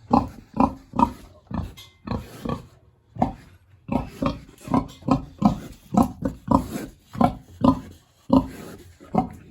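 A big hungry pig grunting over and over in short grunts, about two a second.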